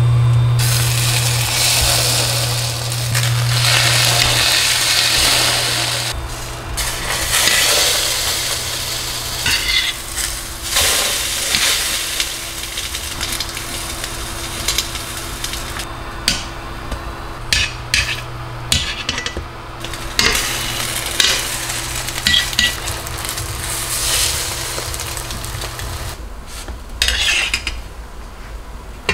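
French toast sizzling as it fries in a stainless steel square pan, loudest for the first few seconds and quieter afterwards. Short clicks and scrapes of a metal turner against the pan come as the slices are turned and lifted out, over a low steady hum.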